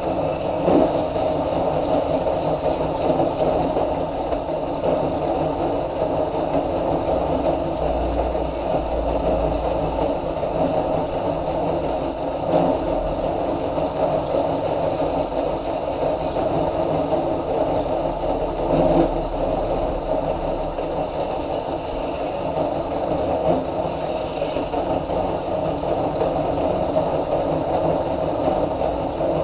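Electric drift trike's motor and wheel spinning a PVC sleeve at a steady speed, with a hand-held edge tool held against the spinning rim, shaving the plastic edge round.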